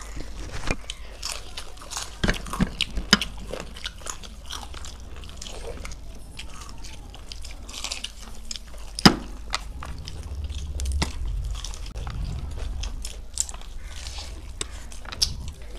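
Crunching bites and chewing into crispy batter-fried chicken legs, with sharp crackles of the fried crust; the loudest crack comes about nine seconds in.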